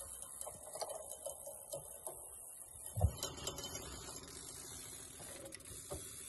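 Fishing reel being cranked against a hooked salmon, its gears clicking and whirring in quick, uneven runs. A thump about three seconds in.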